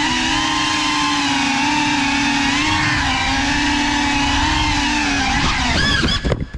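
Cinelog 35 cinewhoop FPV drone's motors and ducted propellers whining steadily, the pitch drifting up and down a little with throttle. Near the end the whine wavers and cuts off suddenly as the drone crashes.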